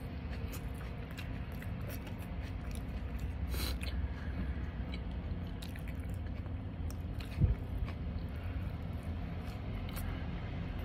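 A man chewing and biting into a pizza slice close to the microphone, with many small mouth clicks, over a steady low hum. One louder knock about seven and a half seconds in.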